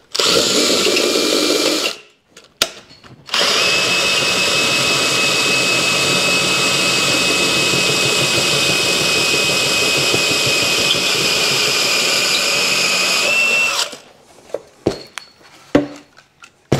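DeWalt cordless drill with a hole saw cutting a drain hole through a steel motorcycle seat pan. It runs in a burst of about two seconds, then after a short pause in one steady run of about ten seconds with a high motor whine. A couple of light clicks follow near the end.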